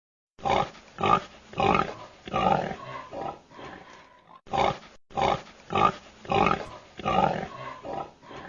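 Domestic pig grunting: a run of short, rough grunts, about one to two a second, with a brief break about four and a half seconds in.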